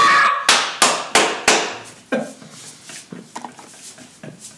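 Four sharp hand smacks in quick succession, about a third of a second apart, then a few fainter knocks.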